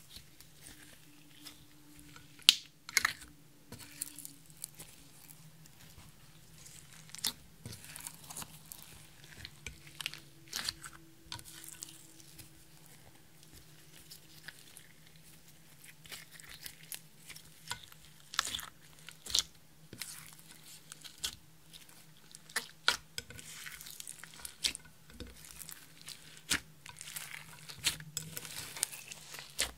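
Clear slime being kneaded and stretched by hand, with glitter and crushed eyeshadow worked into it: irregular wet pops, clicks and crackles, the sharpest about two and a half seconds in.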